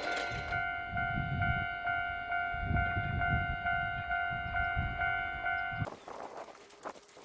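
Japanese level-crossing alarm ringing its electronic two-tone 'kan-kan' at a bit over two strokes a second over a low rumble, then cutting off abruptly near the end.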